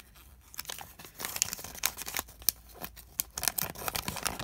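Paper instruction leaflet from a LEGO minifigure pack being unfolded and handled, rustling and crinkling in a run of quick, irregular crackles.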